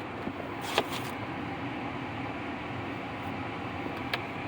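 Steady background rumble and hiss, with a single light click about a second in.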